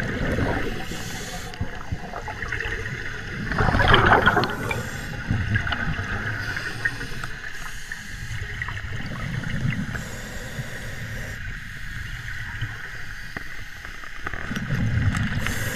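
Underwater bursts of scuba air bubbling and rushing from divers' regulators as a lift bag is blown up with air, the loudest burst about four seconds in.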